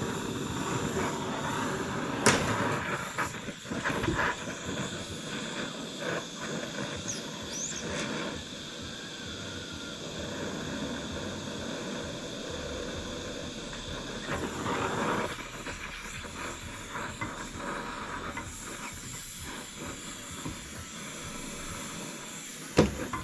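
Gas torch flame hissing steadily while it heats a rusted, seized exhaust manifold bolt on a Ford FE 390 cylinder head to free it. A few sharp metal clicks, the loudest about two seconds in and near the end.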